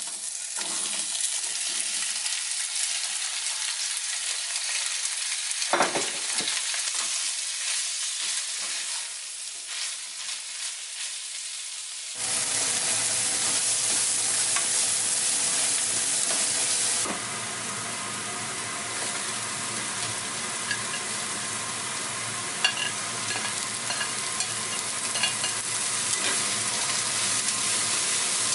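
Chopped onion and vegetables sizzling in hot oil in a nonstick pan while being stir-fried with a spatula. The sizzle turns louder and fuller about twelve seconds in, with a few light clicks of the spatula against the pan.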